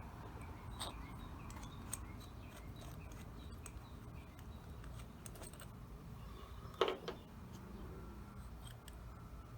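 Light clicks and clinks of small metal parts being handled as a small-engine carburetor is taken apart, with one louder clack about seven seconds in.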